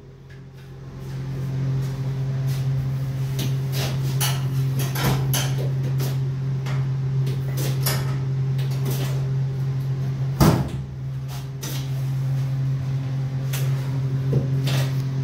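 Steady mechanical hum with scattered clicks and knocks from stainless-steel cabinet doors and fittings being handled; the loudest knock comes about ten seconds in.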